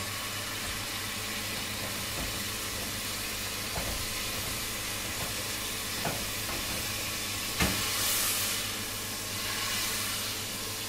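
Fish frying in a pan on a gas stove, sizzling steadily while white vinegar cooks off, with a steady hum under it. A utensil knocks against the pan a few times, the sharpest knock coming past the middle, and the sizzling swells up just after it and again near the end.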